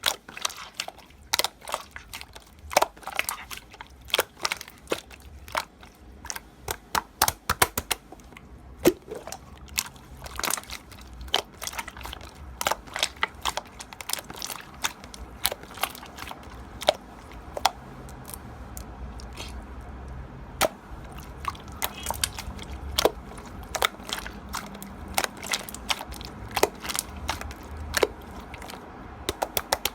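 Slime being squeezed and worked by hand, giving irregular crisp clicks and crackles.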